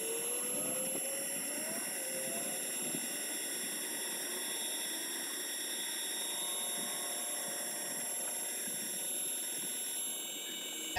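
A 12 V linear actuator's electric motor whining steadily as it drives the sliding chicken-coop door, played back sped up four times so the whine sits high-pitched.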